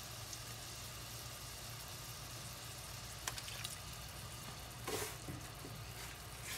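Diced squid and onions sizzling faintly in oil in a stainless steel pot, just after a spoonful of vinegar has gone in. A couple of small clicks near the middle and a short louder rustle about five seconds in.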